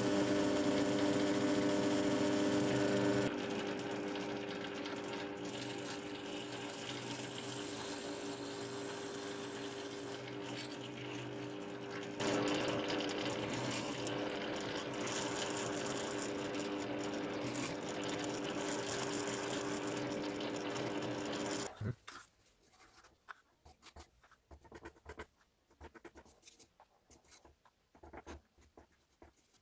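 Bench drill press motor running with a steady hum while drilling holes, first through a steel knife blank and then through a handle scale; the level steps down about 3 seconds in and back up about 12 seconds in. The motor sound cuts off abruptly about 22 seconds in, leaving only faint small taps and rubbing as epoxy is spread on the handle scale with a wooden stick.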